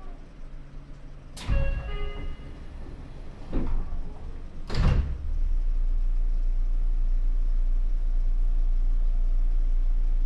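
Sliding doors of a Seibu 6000 series electric train closing at a station stop: a sharp bang with a brief ringing about a second and a half in, then two more thumps over the next three and a half seconds. After that a steady low hum sets in.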